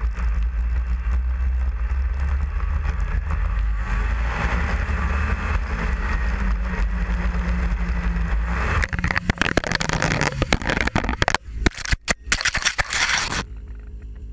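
Snowmobile engine running at riding speed, a steady low drone that climbs in pitch about four seconds in as it speeds up. From about nine seconds in, harsh broken crackling and scraping noise takes over, then near the end it drops to a quieter hum.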